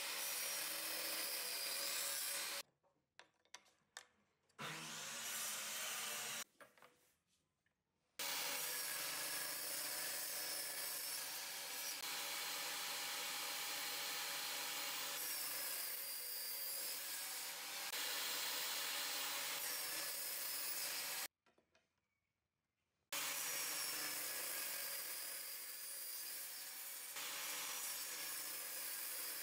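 A table-mounted power saw running and cutting pine boards fed on a sliding crosscut table: a steady motor whine with the blade cutting through wood. The sound drops out abruptly three times, each time for about two seconds.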